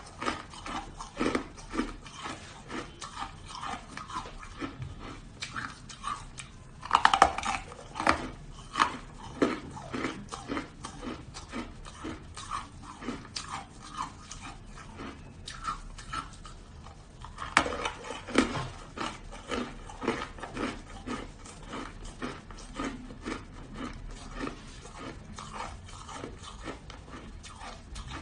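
Hard shaved ice being bitten and chewed: a dense run of crisp crunches, with louder clusters of bites about seven seconds in and again around eighteen seconds.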